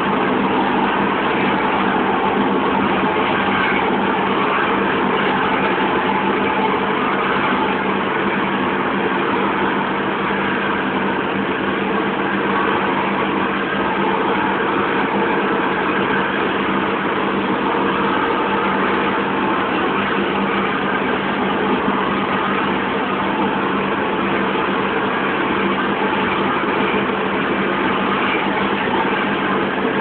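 Oil-fired burner of an aluminium melting furnace running steadily at full fire: a loud, even rushing noise with a steady low hum underneath.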